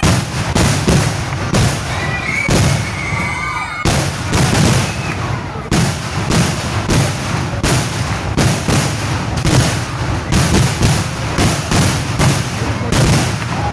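Kerala temple fireworks (vedikettu) going off in a continuous rapid barrage: bangs a few a second, overlapping over an unbroken rumble.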